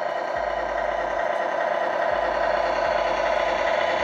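Tamiya Grand Hauler RC truck's multi-function sound unit playing a simulated big-rig diesel engine idling through its small onboard speaker, steady and growing slightly louder. The simulated engine is at its warm-up idle.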